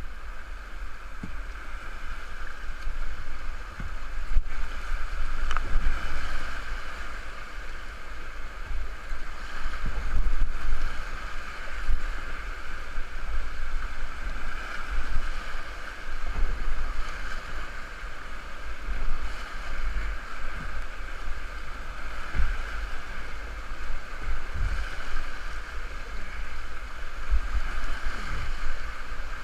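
Rushing whitewater of a river in flood churning around a kayak running rapids, a steady roar with surges and irregular low thumps of water and wind buffeting the microphone.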